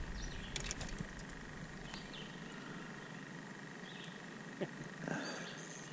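Quiet lake ambience with a faint steady high tone, a few light clicks about half a second in, and short faint bird chirps now and then.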